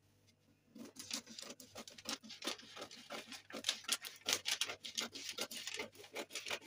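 Scissors snipping through brown paper pattern paper: a quick run of short cutting snips, several a second, starting about a second in.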